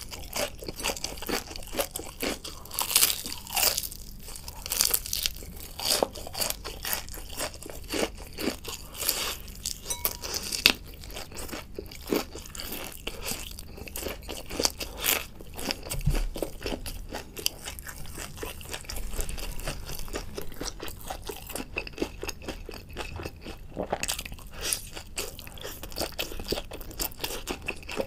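Close-miked crunching and chewing of crispy fried food: a dense run of sharp, crisp crackles from bites and chewing, thinning a little near the end.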